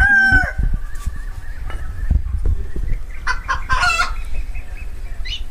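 Chickens clucking, with a burst of hen calls about three to four seconds in. Dull knocks of bowls and paneer being handled come and go underneath.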